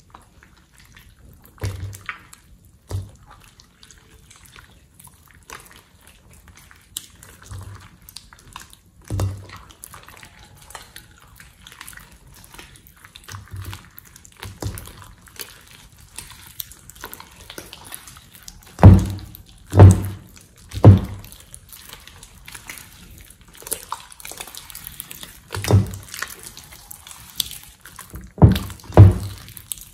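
Hands kneading and squeezing wet slime in a glass bowl: irregular squelches and pops, with three loud ones close together about two-thirds of the way through and another few near the end.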